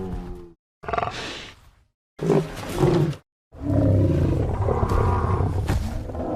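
Triceratops roar sound effects: separate deep animal calls cut apart by short, completely silent gaps. A call fades out at the start, a brief higher call follows about a second in, then two short grunting calls, and a long roar begins about three and a half seconds in.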